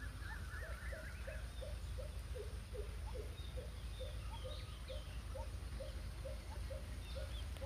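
A bird calling: a short note repeated about three times a second, with a brief warbling trill near the start, over a faint low hum.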